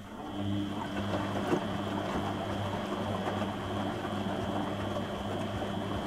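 Beko WM74155LS washing machine's brushed motor turning the drum in a wash tumble: a steady motor hum with a thin high whine over the slosh of water and wet laundry in the drum.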